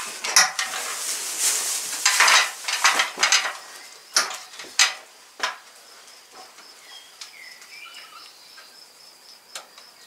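Loud, irregular crackling and rustling for the first five seconds or so, over a steady, high, cricket-like insect trill that carries on alone afterwards.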